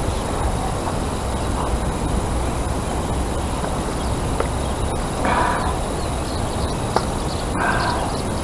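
Steady rushing outdoor background noise, with two short bird calls, one about five seconds in and another near eight seconds.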